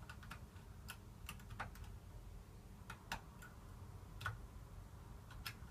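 Faint, irregular metallic clicks of a curtain pick feeling and lifting the levers inside an ERA Fortress BS 5-lever mortice lock under light tension, working from the back lever. Two clicks, about three and four seconds in, are louder than the rest.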